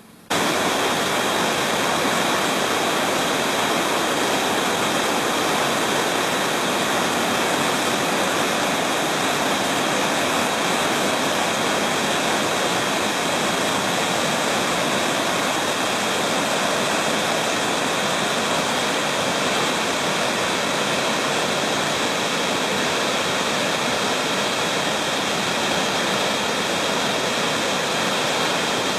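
South Umpqua Falls: river water rushing over wide, sloping bedrock ledges into a pool. The sound is a steady, dense rush that cuts in suddenly just after the start.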